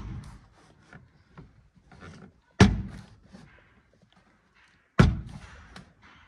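Three sharp thunks, about two and a half seconds apart, each fading quickly, as the door trim panel of a Suzuki Mehran is tugged loose from the door, with faint rustling and handling noise in between.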